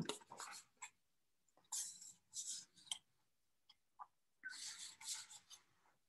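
Faint rustling and scratching of paper towels being handled, in three short bursts with a few small clicks between them.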